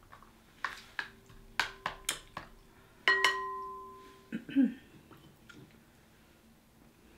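Glass mixing bowl clinking as sauce-covered seafood is picked out of it: several light clicks, then a louder strike about three seconds in that rings with a clear tone for about a second, and a short cluster of duller knocks just after.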